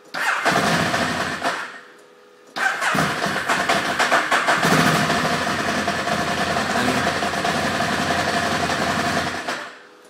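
Ducati Monster 1100's air-cooled L-twin being started cold. The starter cranks in a short burst and stops, then cranks again, and the engine catches and runs unevenly before it is shut off shortly before the end. This is a hard cold start, which the owner puts down to the stock 10 amp-hour battery and cables.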